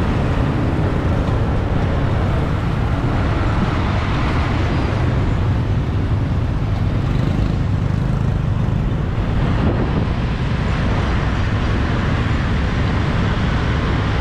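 Steady road and traffic noise heard from a moving motorbike in city traffic: a continuous low rumble of engines and rushing air, with no distinct events.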